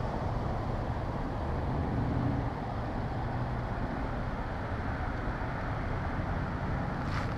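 Steady car engine and road noise, with a brief tick near the end.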